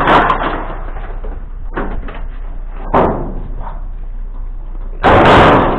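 A few sharp knocks and thumps over a steady rushing noise, with a loud, longer burst of noise about five seconds in.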